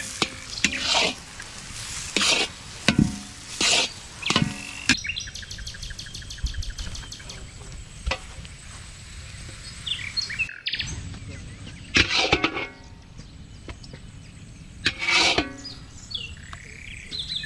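Birds calling: a run of short, loud, harsh calls in the first few seconds, then two more, about twelve and fifteen seconds in.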